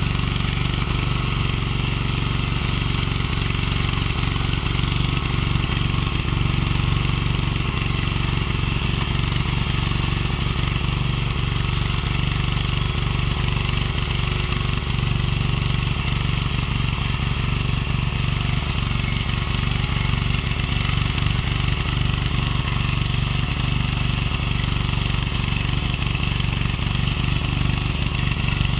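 Ecomax 12 hp walk-behind rotary tiller's engine running steadily under load as the machine tills sod.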